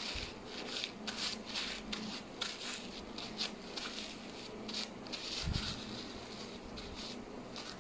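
Paper tissue rustling and crinkling close by as hands fold and crumple it, in short irregular bursts, with a soft low thump a little past halfway.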